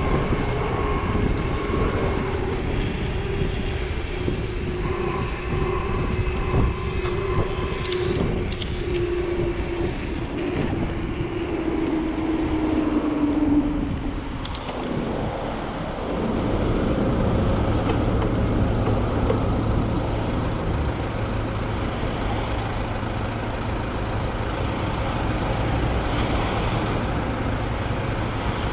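Riding an electric mountain bike in road traffic, with wind and tyre noise on the helmet or handlebar camera and a whine that falls slowly in pitch as the bike slows. About halfway through the bike stops at traffic lights, and a steady low hum of idling cars takes over.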